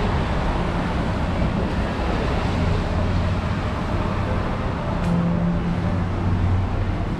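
Steady outdoor rumble of road traffic, with a low engine hum running through it.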